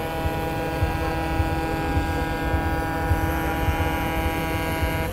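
A steady engine drone with many even overtones, over a rough low rumble. The drone cuts off suddenly near the end.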